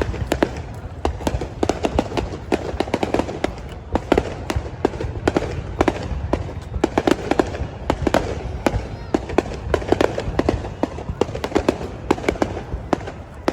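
Fireworks display going off in a dense, continuous run of bangs and crackling pops, several a second, with a steady low rumble underneath.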